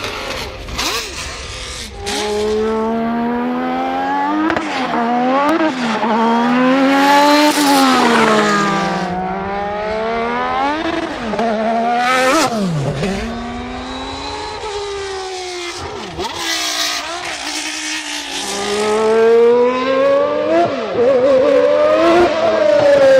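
Honda Formula One car engines at racing speed, high-pitched and loud, revving up through the gears and dropping on downshifts. There are several separate runs, one with a quick falling pitch as a car passes about twelve seconds in.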